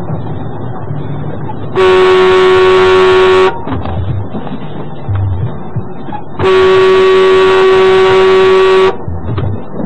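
Vehicle horn sounding two long steady blasts on one pitch, the first about a second and a half long and the second about two and a half seconds, over the low steady rumble of a vehicle driving on the highway.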